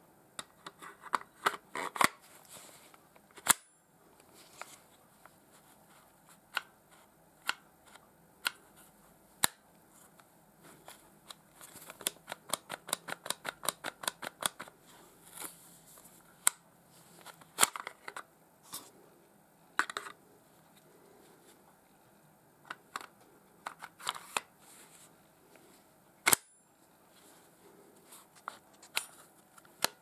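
Hard plastic clicks, snaps and scrapes of a polymer pistol holster with an automatic safety lock as a CZ 75-style BB pistol is pushed in, latched and released. There are several sharp single snaps, and a quick even run of light clicks, about five a second, in the middle.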